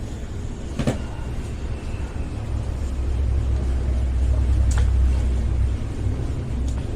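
A low rumble that swells in the middle and then eases off, like a vehicle going by, with a sharp click about a second in and another near five seconds.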